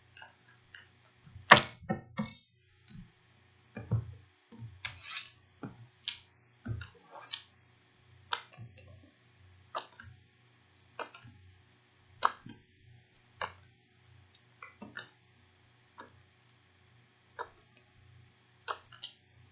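A tarot deck being shuffled by hand, with sharp card snaps and taps about once a second, the loudest a second or two in. A faint steady hum runs underneath.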